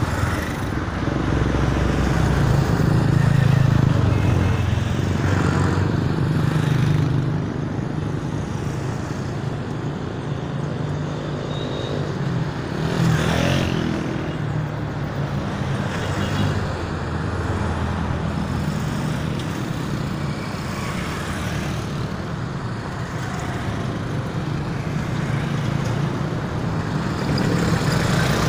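Road traffic: motor vehicles running and passing, the engine noise swelling and fading, loudest a few seconds in and again about halfway through.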